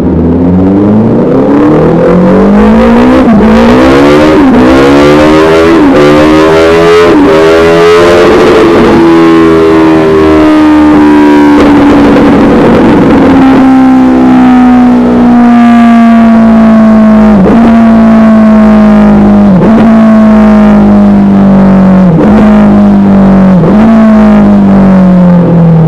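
Suzuki Hayabusa's inline-four engine on a dyno, loud through an aftermarket Dominator exhaust: the revs climb for about eight seconds with several brief dips in the note, then the pitch slowly falls for the rest, broken by short dips every couple of seconds.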